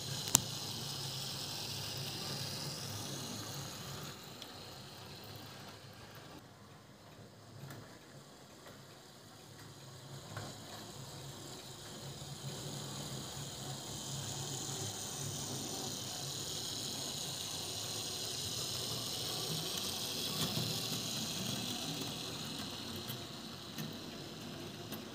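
Fleischmann H0 model T3 tank locomotive running with its coaches, its small electric motor whirring and its wheels running on the rails. The sound fades for a few seconds, then grows steadily louder again as the train comes closer.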